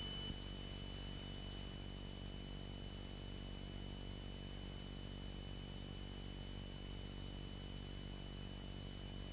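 Faint steady hum and hiss on the light aircraft's cockpit radio/intercom audio feed, with a thin, steady high-pitched whine over it.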